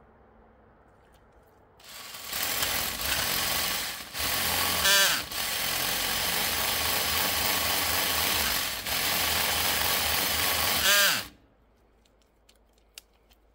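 Cordless drill driving a chainsaw attachment through a black birch branch. The motor and chain run loud and steady from about two seconds in, with a brief let-off around five seconds where the motor's whine falls and picks up again. Near eleven seconds the motor winds down with a falling whine and stops.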